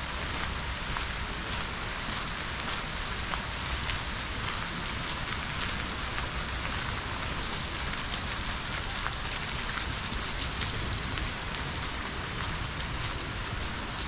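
Steady rain: an even hiss full of small drop ticks, over a low steady rumble.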